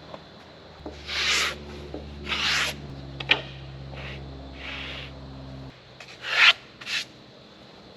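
A small motor hums steadily for about five seconds and then cuts off, while short scraping, rubbing strokes come and go about five times, the loudest near the end.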